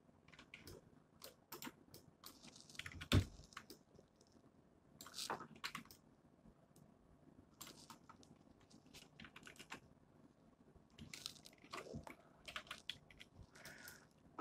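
Faint, irregular clicks of computer keyboard keys and a mouse being worked, with one louder knock about three seconds in.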